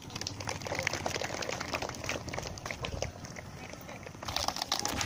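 Crackling, rustling handling noise on a handheld phone's microphone: a dense run of small clicks that grows louder near the end.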